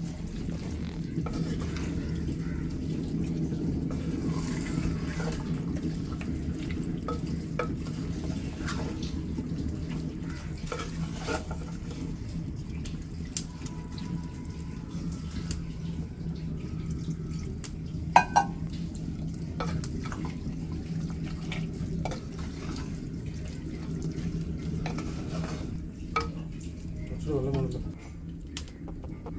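Wooden spatula stirring and scraping chunks of masala-coated beef in a clay pot, with scattered clicks and knocks and a sharper knock about eighteen seconds in, over a steady low hum.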